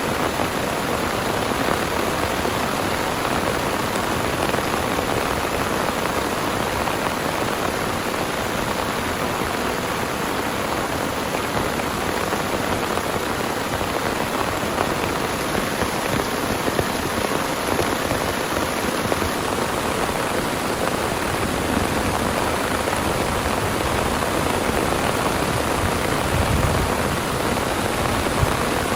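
Heavy rain falling steadily, a dense, even patter with no letup.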